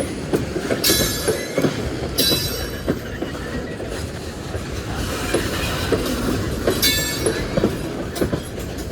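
Freight train cars rolling past, their wheels clacking over the rail joints, with three short bursts of high-pitched wheel squeal about one, two and seven seconds in.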